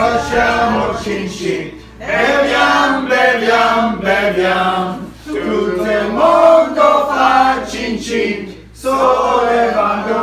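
A group of voices singing together, a toasting song, in phrases of about three seconds with short breaks between.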